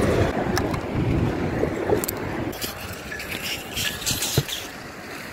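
Handling noise and a few light knocks from gloved hands working a fishing magnet and its rope as it is cleared and thrown back out, over a steady low rumble.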